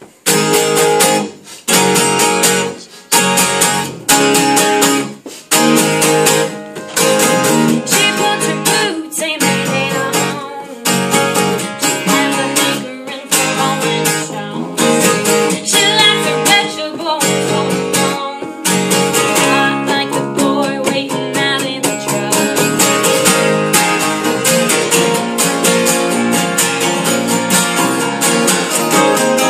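A live band of two acoustic guitars and an electric guitar strumming chords together, in short stabs broken by brief stops at first, then playing steadily from about two-thirds of the way in.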